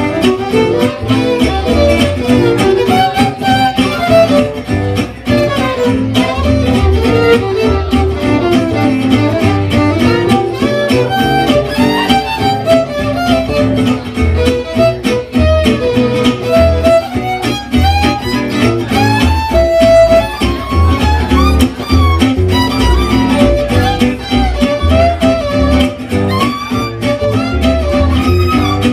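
Gypsy jazz quartet playing live: a bowed violin plays the lead melody over two acoustic guitars strumming a steady beat and an upright double bass.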